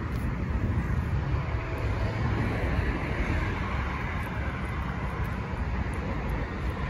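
Steady low outdoor rumble, like street traffic, with a tabby cat chewing dry kibble close to the microphone.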